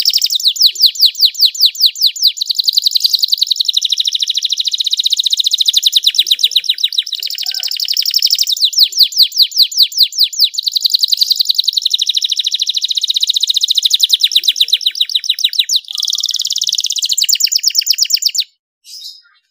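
Canary singing a long, unbroken song of fast trills: runs of rapidly repeated notes, some sweeping in pitch, one run following another, until it breaks off briefly near the end.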